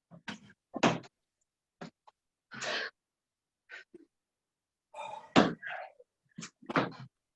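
Scattered thuds and sharp exhales from people doing burpees, each a short separate burst with silence between them.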